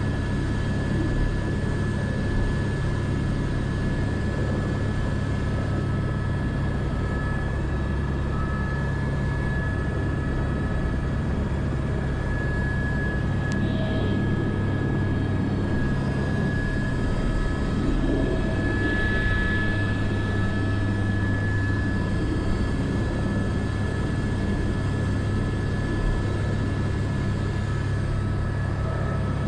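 Airbus AS350 B3 helicopter running steadily, heard from the cockpit: a constant low rotor and engine drone with a steady high turbine whine over it.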